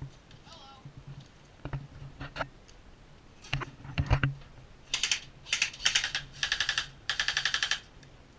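Airsoft gun firing five short bursts of very rapid clicks on full auto, starting about halfway in. Before them come scattered low thumps and clicks.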